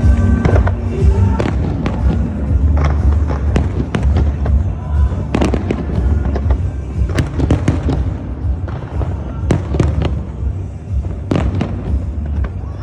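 Fireworks display: a long series of sharp bangs and crackles over loud music with a heavy bass.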